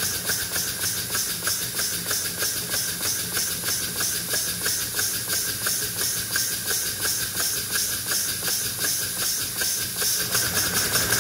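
Cylinders and Walschaerts valve gear of a 3/4-inch-scale live-steam 4-8-4 Northern locomotive running on test: a steady hiss with even exhaust beats, about four a second.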